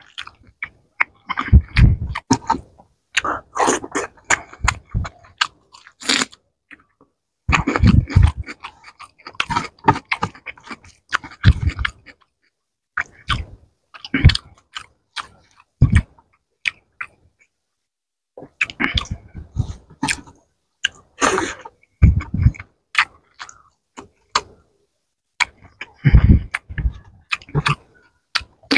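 Close-miked mouth sounds of a person eating fish and rice by hand: wet chewing, smacking and clicking in bursts, broken by short silent pauses.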